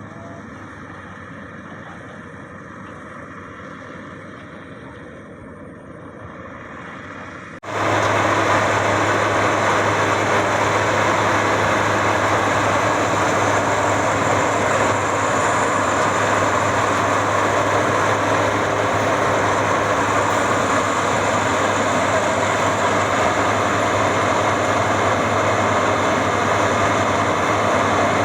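Maxxi Bimo 102 combine harvester running steadily. About eight seconds in, the sound jumps abruptly to a much louder, even mechanical noise with a strong low hum, and it holds there.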